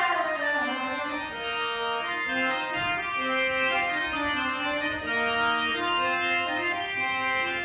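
Instrumental music on a keyboard instrument with an organ-like tone: held notes that move from one pitch to the next about every second.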